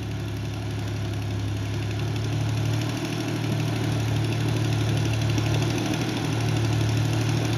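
Off-road 4x4's engine idling steadily, with a low hum and a slight swell in level partway through.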